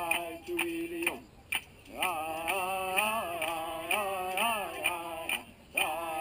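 A man singing a Chumash chant, the line ending on a held note about a second in; after a short pause the chant starts again. A steady percussion beat of short ticks, about three a second, runs under the voice.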